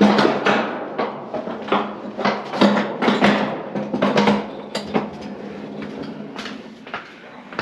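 Backed-up kitchen sink drain gurgling, with irregular glugging pops a few times a second that grow weaker after about five seconds; the gurgling is the sign of a clogged drain line.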